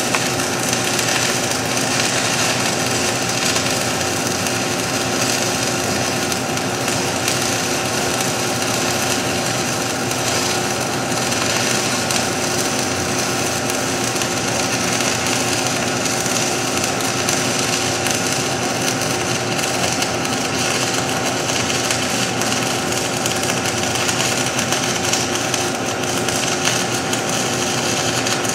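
Stick-welding arc from a 3/32-inch E6010 electrode running a bead with a whip motion: a steady crackling sizzle with a steady tone underneath.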